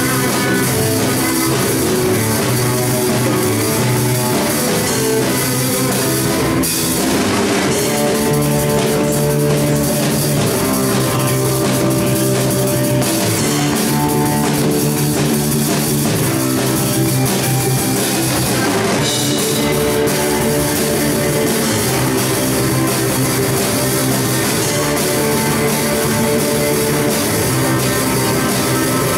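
Live rock band playing an instrumental passage, a drum kit driving the beat under electric guitar.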